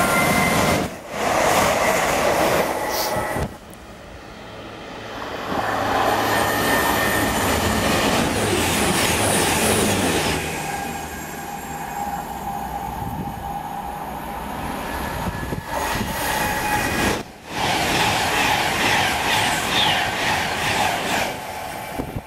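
Electric passenger trains running through a station at speed, in a string of separate passes: each swells as the train approaches and passes, with steady tones over the rail rumble, and the sound breaks off suddenly several times between passes. A Class 350 Desiro electric unit passes near the start and a Class 390 Pendolino is approaching at the end.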